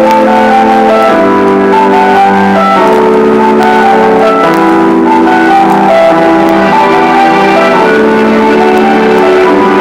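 Loud music with sustained keyboard chords that change about every second and a half.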